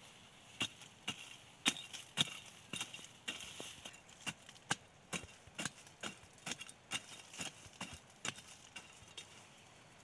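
A machete blade chopping into loose soil in a run of sharp strikes, about two a second, stopping shortly before the end.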